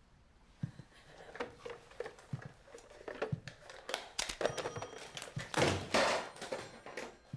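Irregular rustling, clicks and knocks of objects and cord being handled, with a louder rustle about six seconds in.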